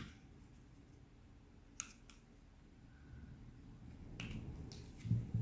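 A few faint, sharp clicks from small parts being handled: two close together about two seconds in and two more around four seconds in, with a couple of soft low knocks near the end.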